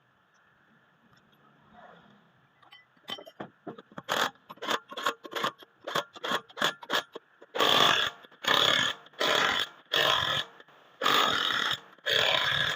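Workshop tool sounds: a run of sharp clicks that come quicker and quicker, then about five loud hissing bursts of half a second to a second each.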